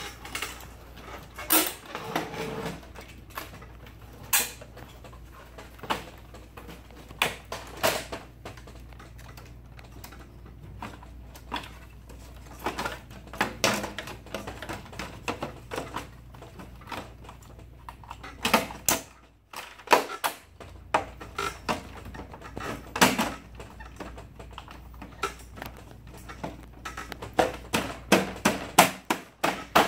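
Plastic covers of an HP laser printer being fitted back on by hand: scattered sharp clicks and knocks as the panels are pressed and their tabs snap into place, with a quick run of clicks near the end.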